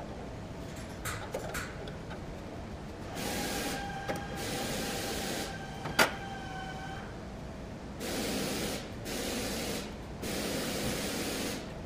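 Pipe fittings on a screw air compressor's oil separator tank cover being loosened. There are several hissing bursts of a second or two each and one sharp metallic click about six seconds in, over a faint steady whine.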